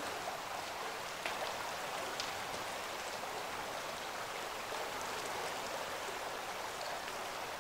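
Shallow, muddy Paria River running steadily, an even rushing hiss of flowing water with a few faint ticks.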